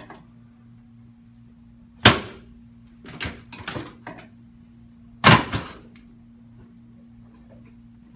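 Spinal joints cracking during a chiropractic adjustment: a loud sharp crack about two seconds in, a quick run of smaller pops, then a second loud crack about five seconds in. A steady low hum runs underneath.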